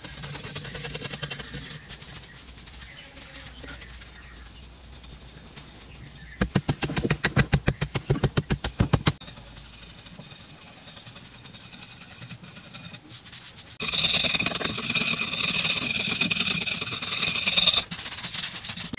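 Hand tools scraping and chipping at soft carved stone, with a run of quick scraping strokes, about seven a second, near the middle. A louder, hissing scrape starts abruptly about two-thirds of the way in and stops shortly before the end.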